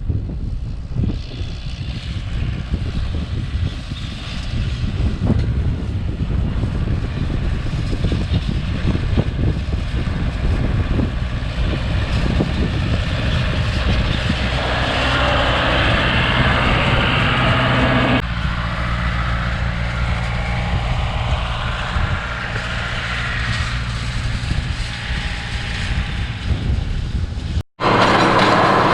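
Farm tractor's diesel engine running steadily, with a noisy rush over it that grows in the middle. The sound changes abruptly about 18 seconds in and cuts out for an instant near the end.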